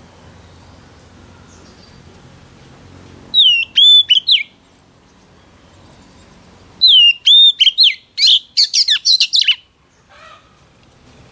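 White-rumped shama singing: two loud phrases of clear whistles with sharp upward hooks, a short one and then a longer one that breaks into a quick string of sharp notes.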